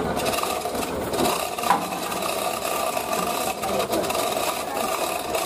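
An engine idling steadily, with scraping and rattling of hand work on the overturned dump truck's metal chassis and one sharp knock a little under two seconds in.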